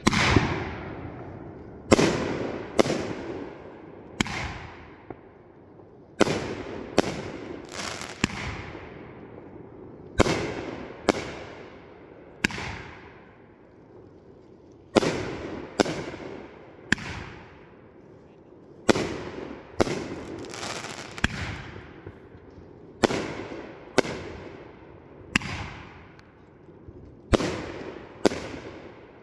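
Raccoon Fireworks 'Seal Team' 500 g cake firing: a long run of sharp shots, often about one a second and in loose groups, each followed by a fading echo as its comet rises and breaks into a burst overhead.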